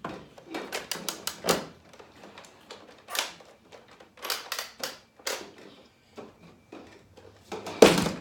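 A run of sharp plastic clicks and clacks from a Nerf blaster being cocked and handled, irregularly spaced, with the loudest clack near the end.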